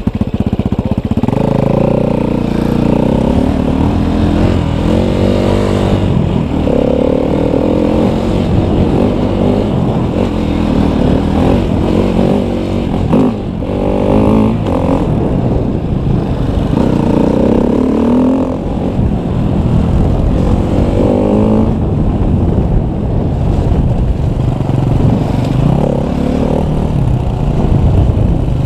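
KTM 250 EXC enduro dirt bike engine under hard riding, its revs rising and falling again and again as the rider accelerates and shifts, with a short drop in revs partway through.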